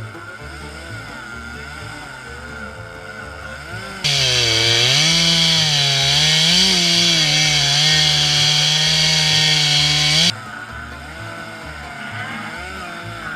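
Two-stroke Stihl chainsaw cutting into wood, its pitch dipping and recovering under load; it cuts in suddenly about four seconds in and stops abruptly some six seconds later. Background music plays before, under and after it.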